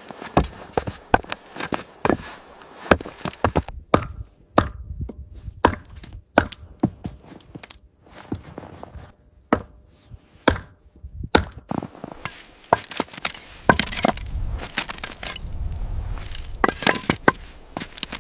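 A series of sharp, irregular cracks and knocks, one or two a second, with a low rumble swelling in from about twelve seconds in.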